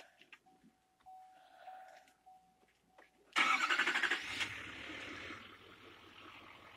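A pickup's door-open warning chime pings repeatedly, then about three seconds in the 2017 Chevrolet Silverado HD's 6.6-litre Duramax turbo-diesel V8 cranks and fires with a loud burst, settling into a steady idle.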